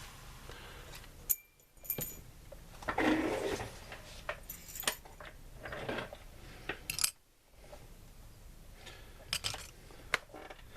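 Handling noises: several sharp clicks and light rustling, with two brief moments of near silence.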